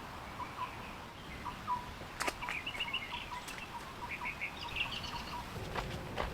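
Small birds chirping: many short, high repeated calls, with a couple of sharp clicks about two and three and a half seconds in.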